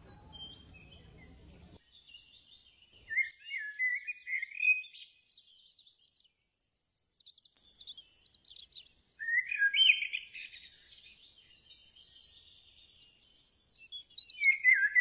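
Birds singing in bright chirping, warbling phrases with short gaps between them, loudest about four and ten seconds in and again at the end. A low rumble at the start cuts off suddenly after about two seconds.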